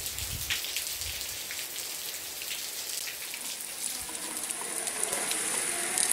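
Steady rain falling on paving and plants, a hiss dotted with many individual drop hits. In the last couple of seconds it changes to a smoother, higher hiss of rain on a wet street.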